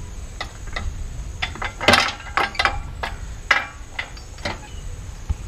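Spanner clinking and knocking against the nuts and exhaust pipe of a Honda CG125 motorcycle as the stock silencer is unbolted: a string of sharp metallic clicks, the loudest about two seconds in.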